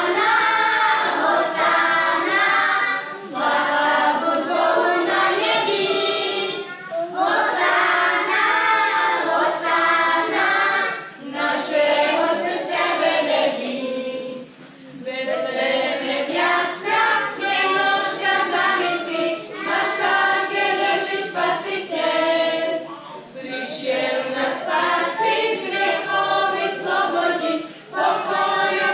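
Children's choir singing, in phrases of a few seconds with short breaks between.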